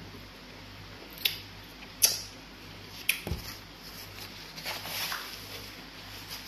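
Close-up eating sounds: three sharp mouth smacks about a second apart, then a short soft rustle of a napkin about five seconds in.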